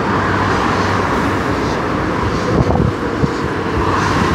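Steady rumble of road traffic mixed with wind buffeting the microphone, with a couple of soft low thumps near the middle.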